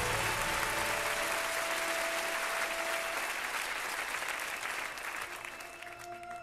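Audience applauding, a dense patter of clapping that thins out and dies away about five seconds in.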